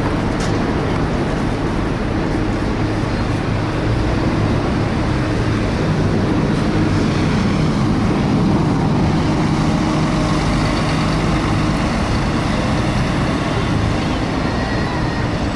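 Volvo B7TL double-decker bus's six-cylinder diesel running as the bus pulls past and away, with its engine cooling fan engaged and giving a steady hoover-like whirr over the engine.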